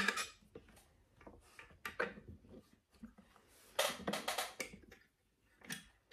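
Short metal clicks and scrapes of bolts and a small hex key being worked by hand into the metal seat mechanism plate of an office chair being assembled. There are a few isolated clicks, with a louder cluster of clatter about four seconds in.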